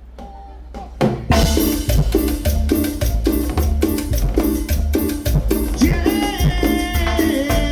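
Latin-style band music starting up: after a quiet low hum and a couple of hits, drums, bass and percussion come in about a second in with a steady beat, and a sustained melody instrument enters near the end.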